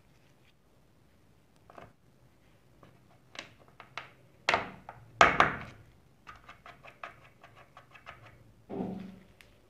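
Plastic keyboard parts being handled, giving sharp clicks and knocks: two louder knocks about halfway through, a quick run of light clicks after them, and a duller thud near the end.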